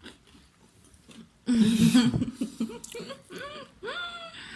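Wordless vocal 'mmm' sounds of enjoyment while tasting food: a loud hum about a second and a half in, then several wavering, rising hums, over a few faint mouth clicks.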